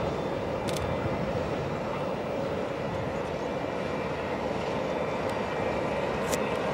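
Steady jet-aircraft noise at an airport: an even rumble with no clear rise or fall, and one or two faint sharp ticks.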